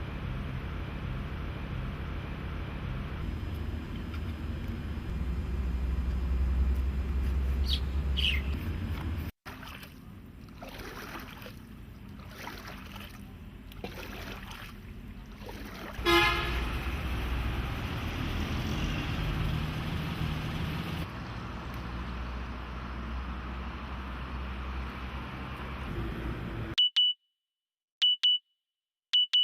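Night-time city traffic noise: a steady low rumble of passing vehicles, cut into several segments, with one vehicle horn honk about halfway through. Near the end the street sound cuts out, leaving three short high beeps about a second apart.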